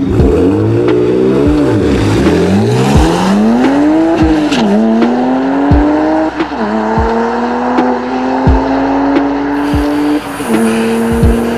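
2007 BMW 335i's twin-turbo inline-six pulling hard through the gears of its six-speed manual on a drag-strip launch: the engine note climbs steadily and drops suddenly at each upshift, several times. The pitch wavers up and down in the first couple of seconds off the line.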